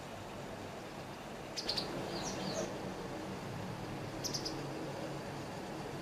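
White wagtail of the Amur race giving short, sharp, high calls: a quick cluster of notes about one and a half seconds in, a few chirps just after, and another brief pair about four seconds in. Steady low background hum throughout.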